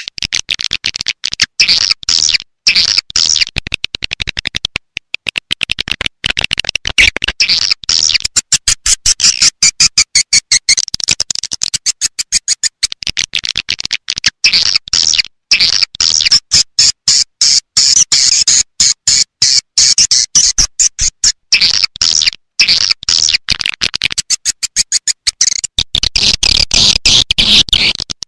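Recorded swiftlet calls, a dense, rapid, choppy twittering of many birds at once, high-pitched. It is a swiftlet call track, played to lure edible-nest swiftlets into a swiftlet house.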